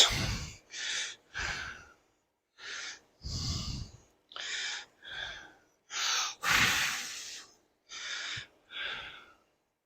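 A person breathing close to the microphone: a run of about a dozen short, hissy breaths with brief silent gaps between them.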